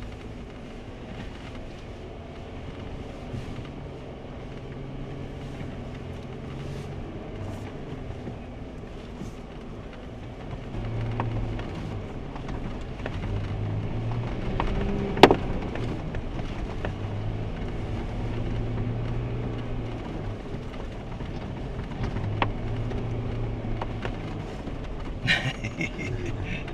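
Jeep engine running at low speed as it crawls over a rough off-road trail, its note shifting and getting louder about eleven seconds in, with occasional knocks and one sharp clack about fifteen seconds in.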